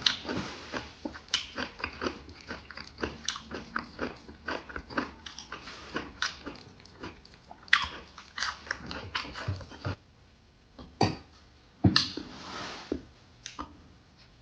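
Close-up mukbang chewing and biting of pan-fried pork intestine and kimchi: rapid wet smacks and crunches for about ten seconds, then quieter, with a few sharp louder clicks near the end.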